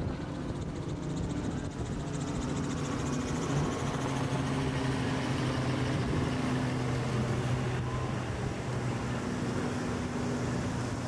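Boat engines running steadily, with a steady engine tone that grows a little louder a few seconds in, over a wash of wind-like hiss.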